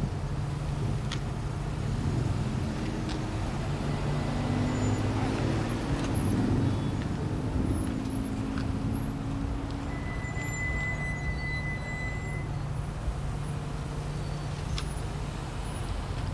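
Cars idling and inching forward in a queue, a steady low engine hum, with a thin high steady tone lasting about two seconds just past the middle.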